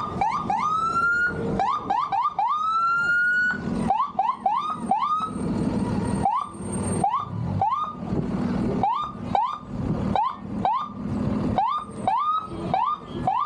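Electronic siren sounding: two longer rising wails, then a fast run of short rising whoops, about two or three a second.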